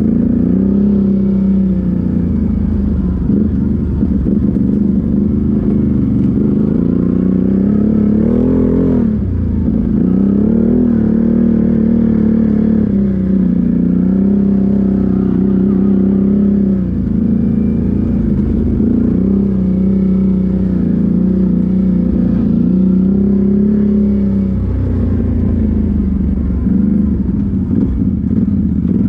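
ATV engine running under changing throttle on a rough dirt trail, its pitch rising and falling as the quad speeds up and eases off, with a dip and climb about nine seconds in.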